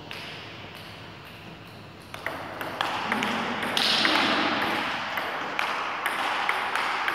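Table tennis ball clicking off the paddles and the table in a rally: a sharp click every half second or so, starting about two seconds in. A brief rushing noise rises partway through.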